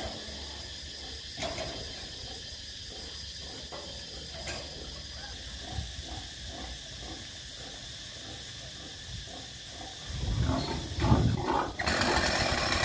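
Pigs grunting over and over in a large pig barn. About ten seconds in come heavier low knocks, and near the end a chainsaw starts up and runs.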